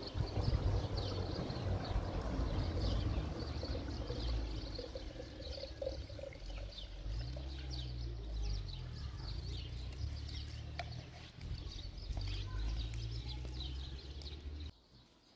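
Water pouring into a plastic jug, stopping abruptly near the end, with small birds chirping many times over it.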